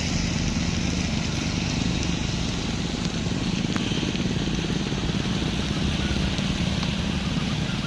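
A vehicle engine running steadily, with an even hiss over it.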